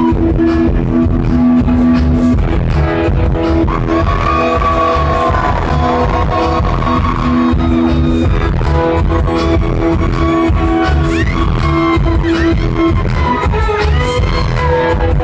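Live music played loud through a venue PA and picked up from within the crowd. A heavy, steady bass beat runs under sustained chords, with a guitar line gliding over the top.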